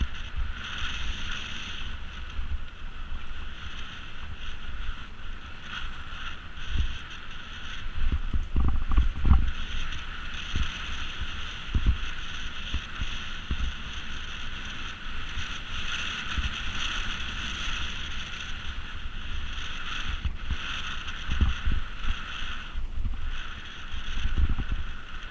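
Wind noise and low, uneven rumbling and thumps from a mountain bike riding over rough ground, louder at several points, over a steady high buzz.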